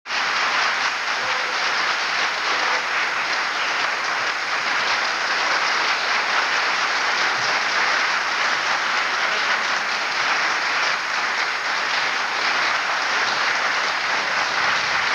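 Audience applauding: many hands clapping together at an even, unbroken level.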